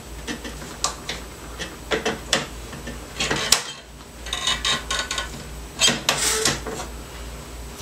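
Scattered sharp clicks and knocks of metal and plastic as a MEC 600 Jr shotshell reloading press and plastic shotgun hulls are handled, with a short clatter about four and a half seconds in and again near six seconds.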